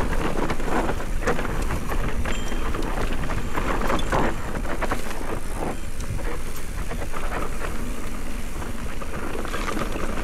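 Electric mountain bike (Specialized Turbo Levo) riding fast down a loose dirt trail: wind buffeting the camera microphone, tyres crunching and skidding over dirt and rocks, and the bike rattling with many sharp knocks over rough ground.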